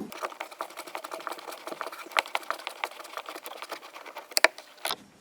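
Torx T20 screwdriver undoing the screw that holds a car door's window control panel: a fast, even run of small clicks, with two sharper clicks near the end.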